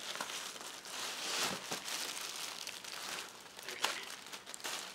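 Plastic air-cushion packing bags crinkling and rustling as hands dig through them in a cardboard box, with one sharp tick about four seconds in.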